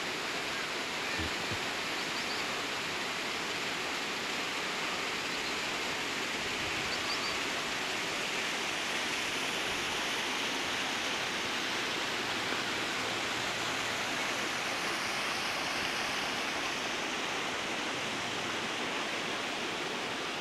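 Steady rushing water, an even hiss with no change in level, with a few faint high chirps near the start.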